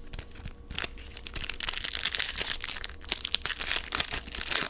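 A baseball card pack's wrapper being torn open and crumpled: dense crinkling and crackling that starts about a second in, grows busier, and stops abruptly at the end.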